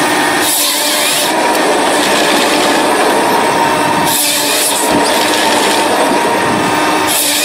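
Forest harvester head working a log: its hydraulic chainsaw bar cuts through in three short bursts, about half a second in, about four seconds in and near the end, over the steady running of the harvester's engine and hydraulics.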